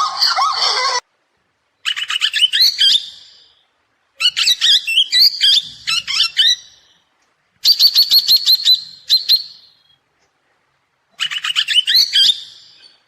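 A bird calling in four separate bouts of quick, high chirps, each lasting a second or two with silent gaps between them. A loud screeching call cuts off about a second in, before the first bout.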